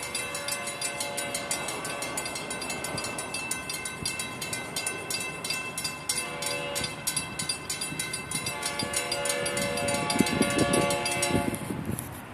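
Railroad grade-crossing warning bell ringing with fast, even dings, while a distant diesel locomotive horn sounds several blasts, the last one long, as a freight train approaches the crossing.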